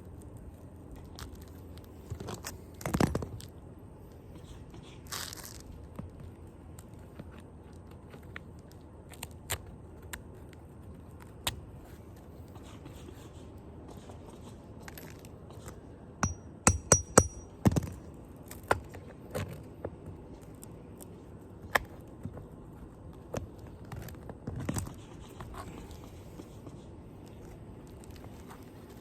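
Old nails being pulled from ELK Raised Profile asphalt shingles, with scraping, crunching and scattered sharp clicks. A quick run of loud clicks comes about two-thirds of the way through.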